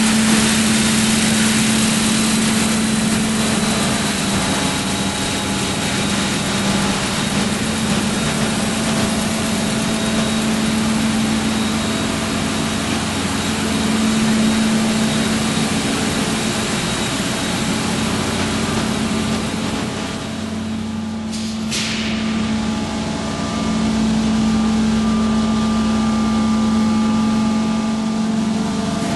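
Machinery of the car ferry ms Prins Johan Friso running: a steady engine drone with a strong low hum. About two-thirds of the way through the sound dips briefly, with a short click.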